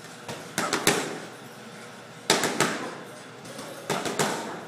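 Boxing gloves smacking focus mitts in three quick combinations: four punches, then three, then three.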